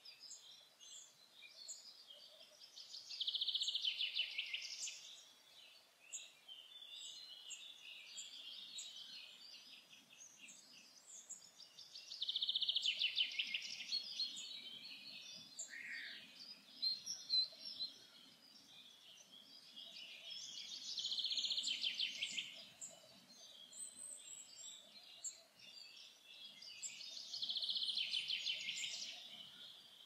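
Forest songbird singing a short phrase of rapid notes, about two seconds long, four times at intervals of several seconds, with other birds chirping faintly between.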